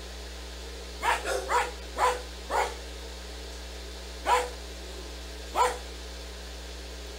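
A dog barking: a quick run of five short barks about a second in, then two single barks spaced a little over a second apart.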